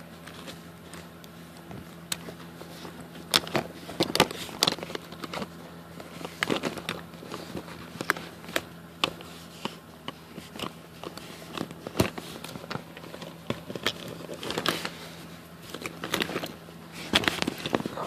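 Handling noise of a phone held against bedding: irregular clicks, crackles and rustling of fabric as it is moved about, with a steady low hum underneath.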